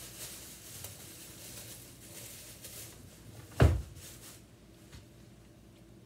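Rustling movement, then one loud, dull thump about three and a half seconds in: a kitchen drawer being pushed shut.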